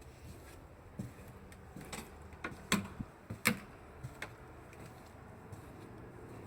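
A scatter of short, sharp clicks and knocks over low background noise, irregularly spaced, with two louder knocks close together near the middle.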